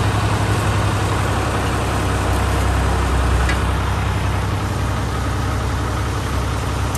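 Fiat 480 tractor's diesel engine running steadily, driving a wheat thresher: a low, even engine hum under the thresher's dense mechanical rush. The engine note shifts slightly about three seconds in.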